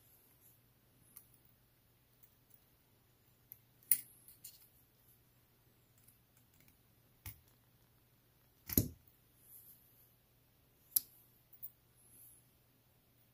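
A precision screwdriver and tiny steel screws give scattered light clicks and taps as the screwed caseback of an Armitron Pro Sport watch is unscrewed and lifted off. A duller knock about two-thirds through is the loudest sound.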